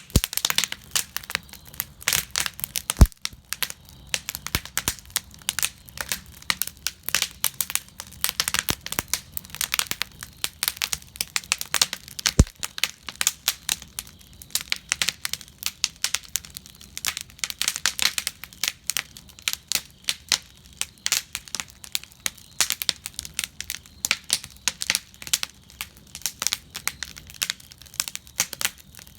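Fire crackling in a fire cauldron: a dense run of small irregular pops and snaps, with two sharper cracks, about three seconds in and about twelve seconds in.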